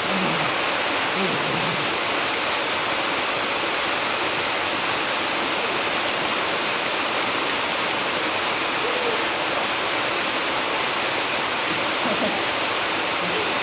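Large waterfall: a steady, loud, unbroken rush of falling water.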